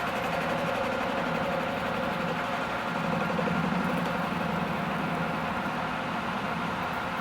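Metal-cutting bandsaw running steadily as it cuts through a piece of hydraulic rod, with a continuous hum of the motor and blade.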